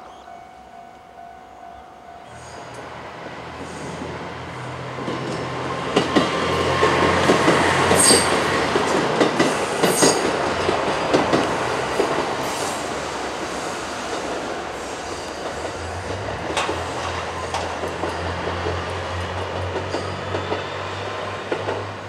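A JR KiHa 189-series diesel limited-express train (Hamakaze) passing through a level crossing. Its diesel engines run with a low hum, and its wheels click sharply over the rail joints, loudest between about 6 and 12 seconds in. The level-crossing warning bell rings for the first two seconds or so.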